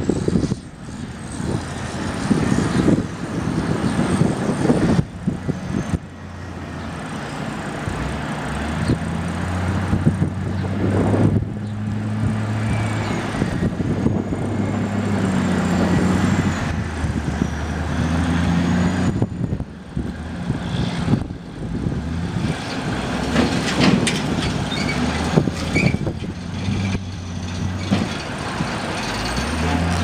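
Pacific P16 off-road logging truck's Caterpillar C15 diesel engine pulling a long train of log trailers: knocks and rattles over the first few seconds, then a steady engine drone under load from about eight seconds in.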